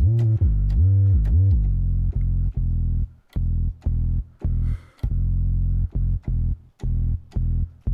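A low, bass-heavy synthesizer patch playing a phrase: the first notes slide up and down in pitch, then it settles into short repeated low notes with brief gaps between them.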